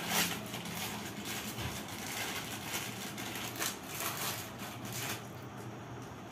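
Plastic snack packets crinkling and rustling in irregular crackles as they are handled.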